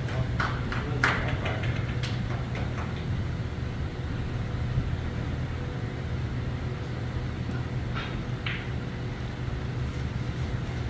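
Steady low room hum, with a few light clicks and knocks in the first three seconds and two short sounds about eight seconds in.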